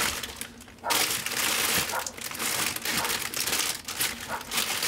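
Plastic bags crinkling as bagged clothes are rummaged through in a cardboard storage box. It starts about a second in and keeps up with many small crackles.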